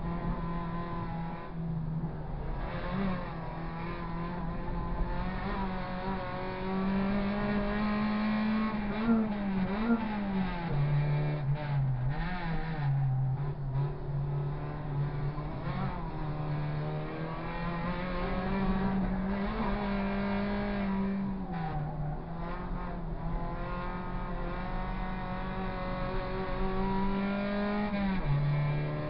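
Suzuki Swift race car's engine running hard under load, heard from inside the cabin, its revs climbing and falling with the driving, with sudden drops in pitch about ten seconds in and near the end.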